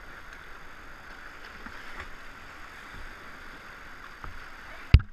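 Steady rush of whitewater pouring through a creek rapid, with a few faint knocks. Near the end there is a single sharp, loud thump.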